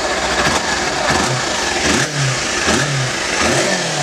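Kawasaki Versys motorcycle engine, on its unmodified stock exhaust, running just after start-up. It is blipped with several short throttle revs, each rising and falling back within a second.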